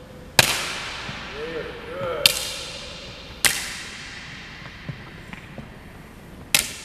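A child's plastic hockey stick smacking balloons and the floor: four sharp cracks, the first the loudest, each trailing a long echo off the hard walls and floor of a gymnasium.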